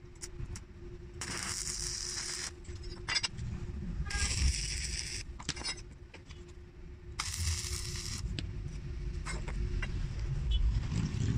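Stick (arc) welding on square steel tubing: three short tack welds, each a burst of hissing arc noise lasting about a second, with light clinks and scrapes of metal being handled between them and a faint steady hum underneath.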